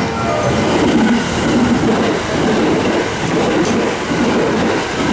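Limited express electric train passing through a station platform at speed. Its wheels rumble along the rails with a regular clatter as the wheelsets cross the rail joints.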